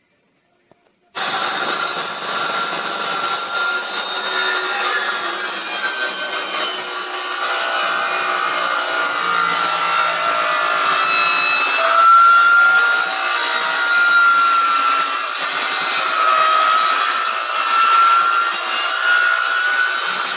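Jigsaw cutting through wood, starting abruptly about a second in and running steadily, its motor pitch wandering slightly as the blade meets the wood.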